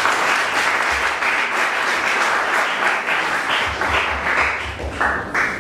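Audience applauding a correct answer: many hands clapping at a steady level, thinning to a few last spurts near the end.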